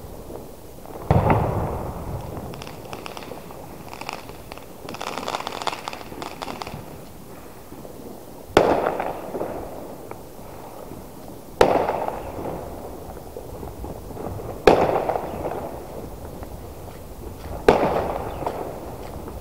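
New Year fireworks bursting: a heavy bang with a rumbling echo about a second in, then several seconds of crackling, then four more bangs with echoing tails at roughly three-second intervals.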